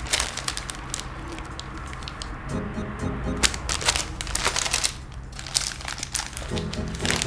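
A paper-wrapped pack of bamboo skewers being handled and unwrapped, with sharp crackles and clicks, over light background music.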